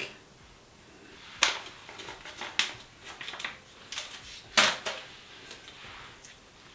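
Sheet face mask packet being torn open and crinkled: a handful of sharp crackles and rips, the loudest about four and a half seconds in, then softer rustling as the mask is drawn out.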